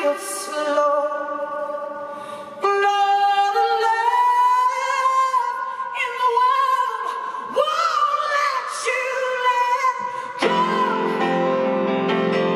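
A woman sings live, holding long notes that slide and waver in pitch. About ten seconds in, full grand piano chords come in underneath and carry on.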